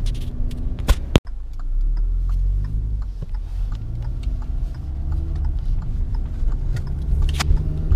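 Car engine and road rumble heard from inside the cabin while driving, the engine note rising several times as the car pulls away and accelerates. Two sharp clicks about a second in.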